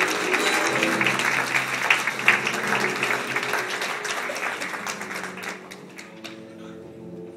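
An audience applauding over music. The clapping fades away about five or six seconds in, leaving the music playing.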